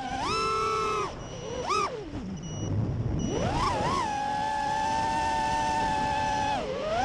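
FPV racing quadcopter's brushless motors whining, the pitch swooping up and down with the throttle. It drops low about three seconds in, then climbs and holds a steady high whine for a couple of seconds before falling and rising again near the end.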